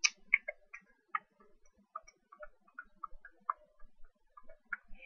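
Faint computer mouse clicking: an irregular run of short, light clicks, a few a second, as the mouse is worked around the desktop.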